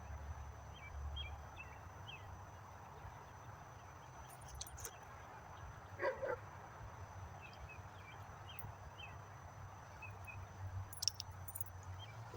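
A dog gives one short whine about six seconds in, over a faint outdoor background with light high chirps and a few small clicks.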